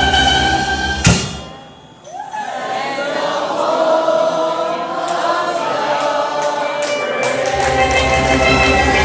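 Steel drum band playing, breaking off with one loud accented hit about a second in. After a short lull, voices sing over the steel pans without the bass and drums, and the bass and drums come back in near the end.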